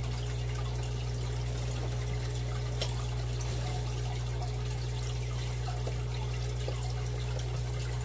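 Steady low hum with a faint trickle of water: an aquarium's pump and filter running.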